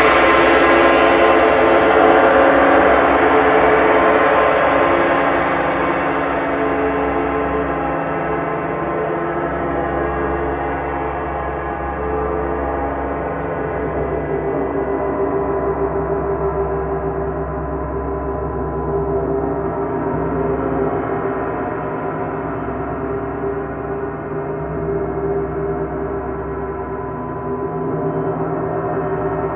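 Several large hanging gongs played with mallets, blending into one dense, sustained wash of overtones. The sound is brightest at the start; the high overtones slowly die away while the low and middle tones keep ringing and gently swell.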